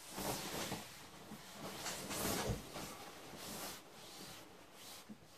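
Movement noises: clothing rustling and footsteps as a person crosses a room and sits down on a bed, with a soft thump about two and a half seconds in.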